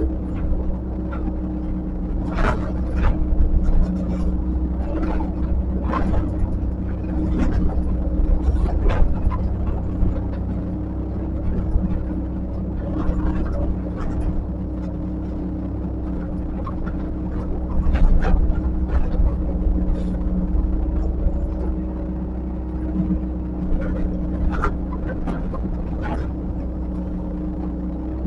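Diesel engine of a heavy construction machine running steadily with a low rumble, with scattered sharp clanks and knocks from the machine working, loudest about two-thirds of the way through.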